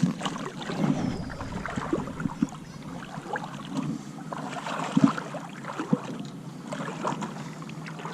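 River water splashing and lapping irregularly around the legs of someone wading, with a louder splash-like knock about five seconds in.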